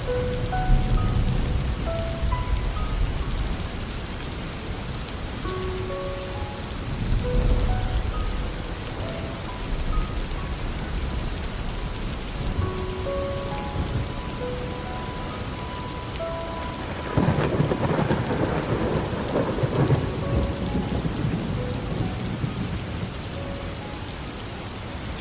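Steady rain falling, with low rolls of thunder near the start and about seven seconds in, and a louder thunderclap about seventeen seconds in that lasts a few seconds. Faint held notes at changing pitches sound over the rain, like a slow, soft melody.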